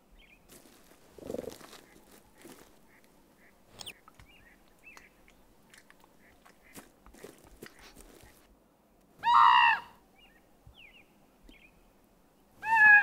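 Common raven giving two loud, harsh calls, one about nine seconds in and another just before the end, with faint ticks and rustles between them.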